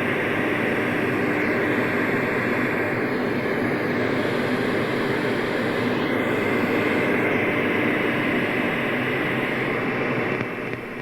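Steady rushing static from a Xiegu G90 transceiver's speaker tuned to FM, with no station coming through. It drops in level near the end.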